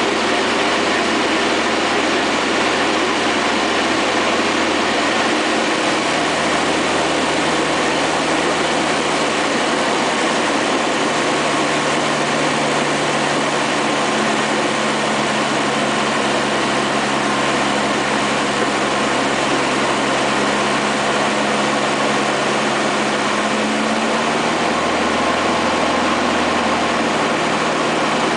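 Cabin noise of a Van's RV-9A light aircraft in flight on its landing approach: the single piston engine and propeller running steadily under a rush of airflow. The engine note shifts slightly in pitch a few times.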